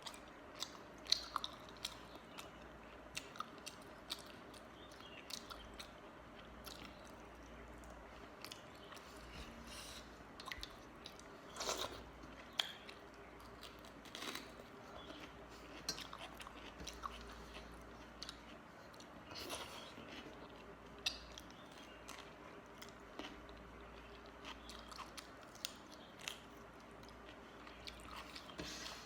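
Close-up mouth sounds of a person eating soaked panta rice with mashed potato and fish curry: steady chewing and biting, with scattered sharp wet smacks and clicks and an occasional crunch.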